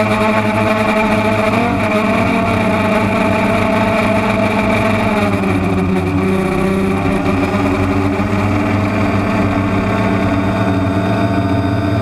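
DJI Phantom quadcopter's motors and propellers whining steadily in flight, several pitches layered together. The pitch drops about five seconds in as the motors slow, then holds steady.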